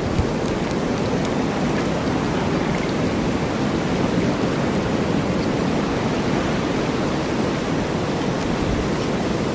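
Snowstorm ambience: a steady, deep rush of blizzard wind that holds level throughout, with no gusts or breaks.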